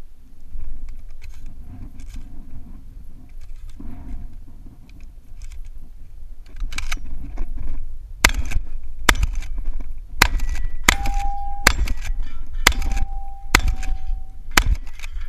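Benelli Supernova pump-action shotgun being loaded shell by shell into its empty magazine tube, with soft clicks and rustling. About eight seconds in, it fires eight shots roughly a second apart, the pump worked between them, and steel targets ring after hits.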